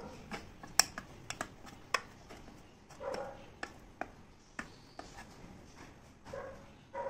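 A few sharp clinks and taps of a utensil against a steel pot and a plate while syrup-glazed apple slices are handled. Twice a short voice-like sound is heard.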